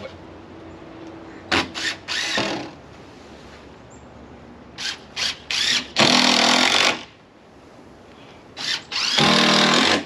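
Power drill driving screws through a wooden strip that holds down a canvas panel: three screws, each started with one or two short trigger taps and then run in for about a second.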